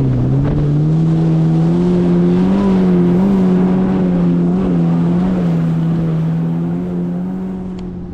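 Jet ski engine running under way at steady speed, with water and wind rushing past. Its note climbs back up at the start after a brief dip, then eases off near the end.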